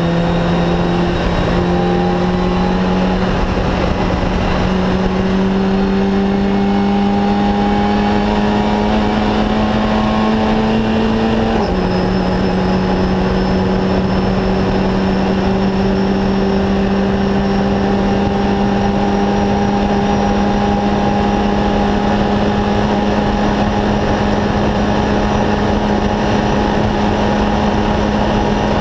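Fun Cup race car's engine heard from inside the cockpit, pulling steadily with its pitch slowly climbing, dropping once at an upshift about twelve seconds in, then climbing again.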